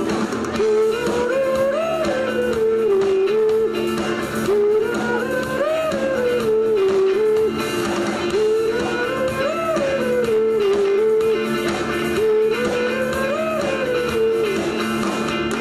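Live instrumental music: a lead melody repeats the same rising-and-falling phrase about every four seconds over steady held chords.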